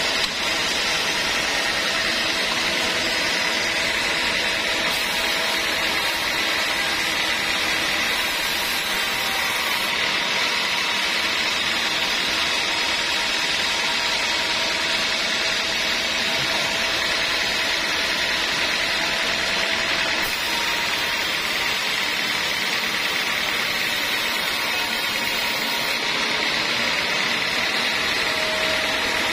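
Homemade band sawmill running steadily, its blade sawing lengthwise through a teak log as the carriage feeds it; a constant machine noise with a steady whine.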